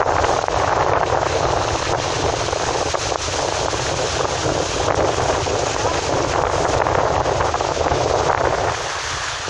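Steady rushing noise inside a moving car on a rain-soaked road, with tyre and road noise over a low rumble. It gets somewhat quieter near the end.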